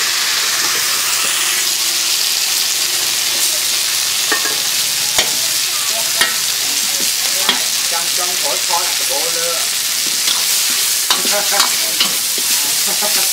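Leafy greens sizzling as they are stir-fried in a hot steel wok: a loud, steady hiss, with the metal ladle clinking and scraping against the wok every second or so, more often near the end.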